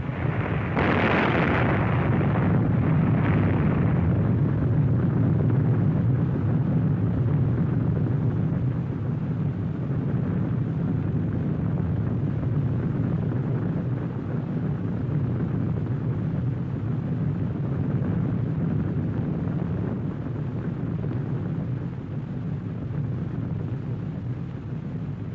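Long, deep rumble of an atomic bomb explosion on an old film soundtrack. It swells with a sharper rush about a second in, its hiss fades over the next few seconds, and it then slowly dies away.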